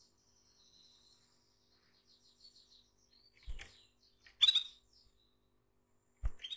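Female canary twittering faintly in high trills, then giving one loud, sharp call about halfway through and a shorter call near the end: the female's calling that draws a male. Two dull knocks come as the bird hops about the cage.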